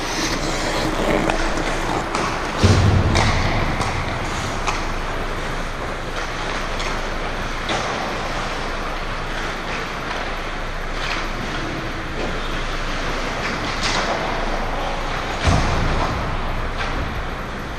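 Ice hockey play in an indoor rink: a steady hiss of rink noise with scattered sharp clacks of sticks and puck, and two heavy thumps, about three seconds in and again near the end.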